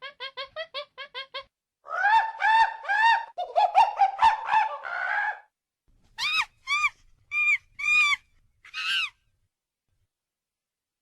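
Poultry calling: a quick run of short, evenly spaced calls, then a series of louder calls about two seconds in, then a few higher, sharper chirps before it falls silent.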